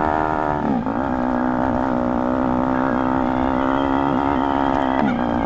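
Honda CBR150R's single-cylinder four-stroke engine running through a loud Austin Racing aftermarket exhaust while riding, a steady engine note that dips briefly and picks back up twice, about a second in and near the end.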